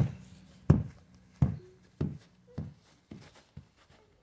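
A football bouncing about seven times, the hollow thumps coming quicker and fainter as the ball settles to rest.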